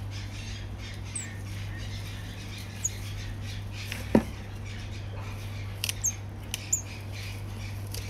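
Hand pruning shears snipping fern fronds, a few sharp clicks a little after halfway. Small birds chirp now and then over a steady low hum, with one loud brief squeak about four seconds in.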